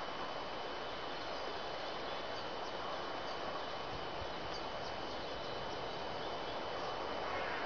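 Steady outdoor background hiss in a pine forest, with a thin high whine held throughout and a few faint high chirps about halfway through.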